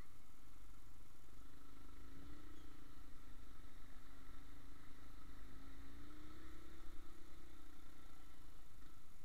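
Motorcycle engine running while riding, its note rising and falling gently, over a steady low wind rumble.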